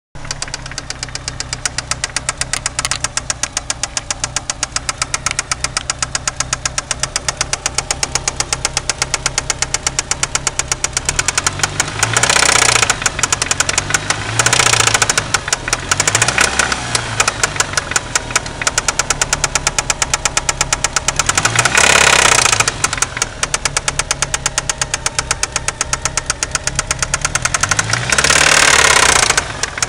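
Turbocharged 4G63 four-cylinder engine of a 1993 Eagle Talon idling with a steady, rapid metallic rod knock, blipped several times so the revs briefly rise and fall. The knock comes from a spun connecting rod bearing that has left play between the rod and the crankshaft.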